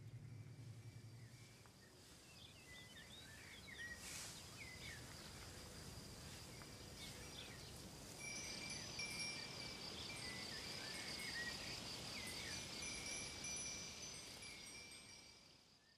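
Faint outdoor ambience with scattered high chirps. About eight seconds in, a steady high warbling trill joins it, and everything fades out near the end.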